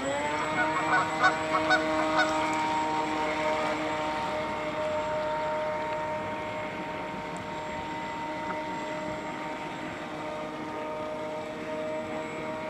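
Single electric motor of a radio-controlled model boat whining steadily at speed, its pitch levelling off just after the start. Canada geese honk several times in the first couple of seconds.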